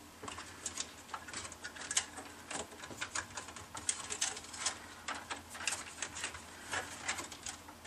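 Hands feeding fan cables through a routing hole in a computer case: scattered, irregular light clicks, taps and rustles of cable and plastic against the case.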